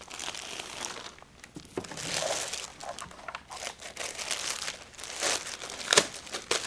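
Packaging crinkling and rustling as a keyboard is unwrapped, in irregular handling noises, with a sharp knock about six seconds in.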